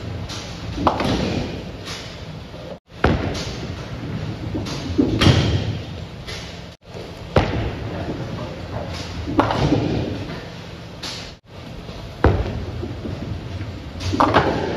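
Bowling balls rolling down wooden lanes and crashing into pins, several spare shots one after another. Each shot has a sharp hit followed by a rattling clatter, heard over steady bowling-alley din, and the sound breaks off abruptly three times between shots.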